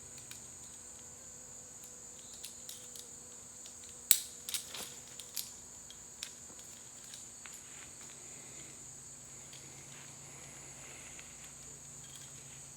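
Steady high-pitched insect chorus, with a cluster of sharp clicks and knocks of climbing gear being handled about four to five and a half seconds in, the first click the loudest, as the lineman's rope is let off.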